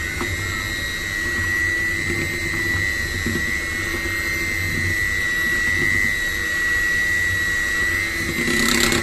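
Electric mixer running steadily at low speed, beating pukis cake batter, with a high, even motor whine. A brief clatter comes near the end.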